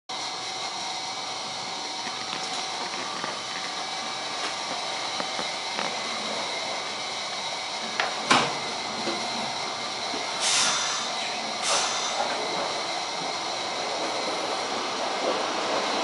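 Cab interior of a standing Toyama Chihō Railway electric train: a steady hum of onboard equipment with a few fixed tones. About halfway through comes one sharp knock, followed a couple of seconds later by two short hisses of air.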